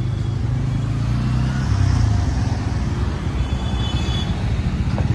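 Bajaj Pulsar N160's single-cylinder engine running under way, with wind and road noise. The engine note rises briefly about two seconds in, then settles back.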